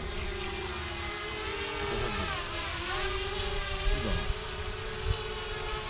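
Small quadcopter drone hovering overhead, its propellers giving a steady whine that wavers in pitch as it moves.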